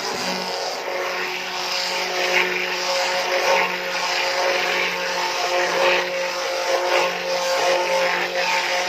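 A handheld electric mixer running steadily, its motor whining as it churns a thin, dark henna paste in a bowl.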